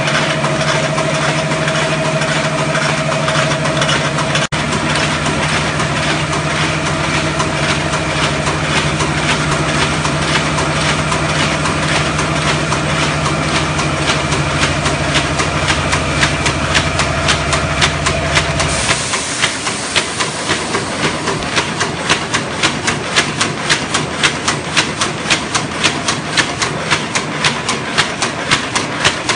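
Paper carton erecting machine running: a steady motor hum under rapid, even mechanical clatter. About two-thirds of the way through the low hum drops away and the forming strokes clack in a regular rhythm of about two to three a second.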